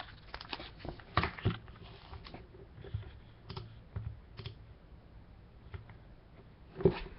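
Hard plastic trading-card cases being handled: scattered small clicks and taps, with one louder knock near the end.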